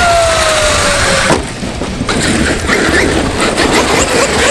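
Traxxas X-Maxx RC monster truck's electric motor whining and falling in pitch for about a second, then a single knock about a second and a half in, with steady rushing noise throughout.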